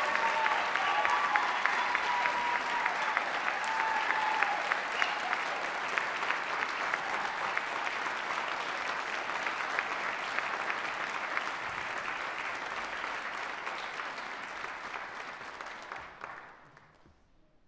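Audience applauding: dense clapping that slowly thins and then dies away near the end.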